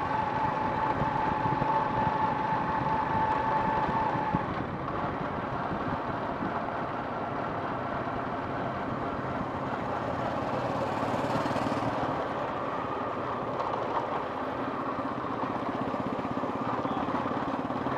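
Engine and road noise of a motorized two-wheeler being ridden, heard from the rider's seat. A steady high whine sits over it for the first four seconds or so and then stops.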